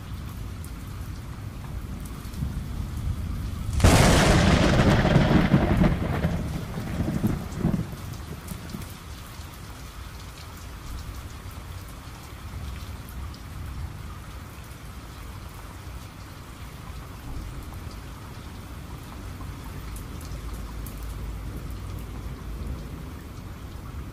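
Steady rain, with a loud thunderclap about four seconds in that rumbles away over the next few seconds.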